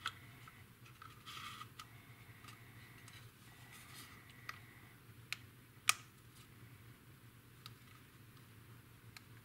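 Faint clicks and taps of injection-moulded plastic model-kit parts being handled as a wing is fitted to the fuselage, with one sharper click about six seconds in.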